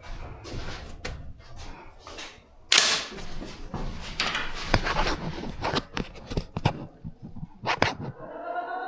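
Rapid clicks, knocks and rattles of rifle and gear being handled as a shooter starts a stage, with one sharp bang about three seconds in.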